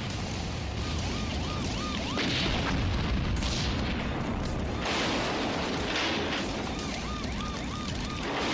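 Film soundtrack of a steady rush of heavy rain, with several louder booming surges and music faintly underneath.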